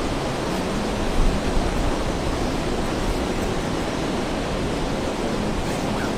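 Heavy rain falling in a steady hiss, with a brief louder swell about a second in.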